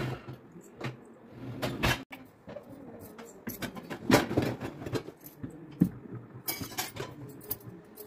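Stainless steel dishes and bowls clinking and rattling in the wire racks of a loaded Bosch dishwasher as a rack is moved, with irregular metallic knocks; the loudest come about 2, 4 and 6 seconds in.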